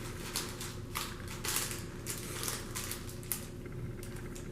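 Snack package of dried mealworms being handled, a string of irregular crinkles and small clicks.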